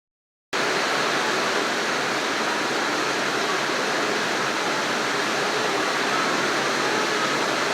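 Very heavy rain falling: a steady, dense hiss that starts about half a second in.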